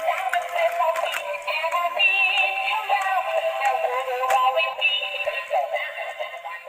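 Battery-powered dancing duck toy playing its electronic song through a small, tinny speaker, a synthesised voice singing over a simple melody. The song fades near the end.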